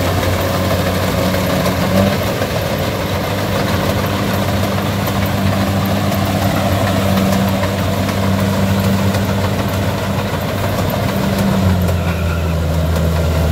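Kubota rice combine harvesters' diesel engines and threshing machinery running steadily at close range, a constant low hum with a rattly machine noise over it; the engine note drops slightly about twelve seconds in.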